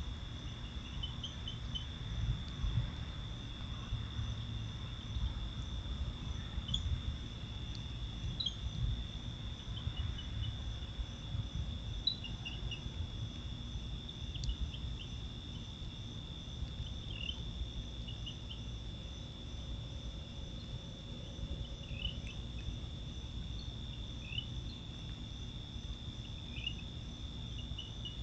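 Night insects, mostly crickets, trilling in a continuous high chorus, with scattered short chirps on top. A low rumble runs underneath, stronger in the first half.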